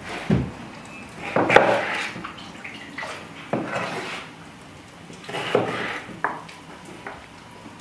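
Kitchen work: a knife chopping onion on a wooden cutting board and metal pots and pans being handled. It comes as a handful of separate clatters and knocks about a second or two apart.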